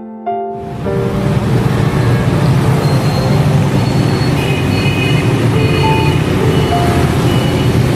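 Busy road traffic: a dense, steady noise of cars and motorbikes that cuts in suddenly about half a second in, with a few short high tones over it and soft piano music faintly underneath.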